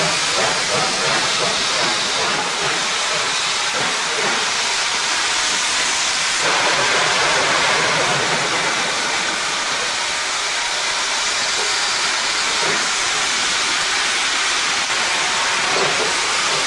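Steam sound effects of a OO gauge model Patriot class steam locomotive: a continuous hiss of steam, becoming louder about six and a half seconds in.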